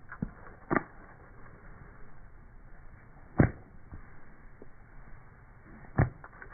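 A wooden stick striking a small plastic toy on asphalt: a few sharp knocks, three of them loud and a couple of seconds apart, with a fainter tap near the start.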